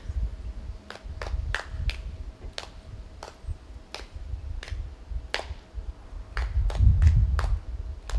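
A series of about a dozen sharp clicks, irregularly spaced, over a low rumble that grows louder near the end.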